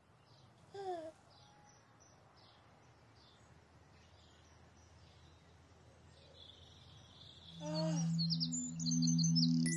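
Faint birdsong, with a baby's short gliding giggle about a second in and again near the end. Gentle music with low pulsing notes begins near the end.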